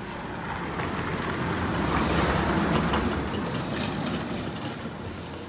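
A motor vehicle passing close by on the road, its engine and tyre noise growing to its loudest about two to three seconds in and then fading away.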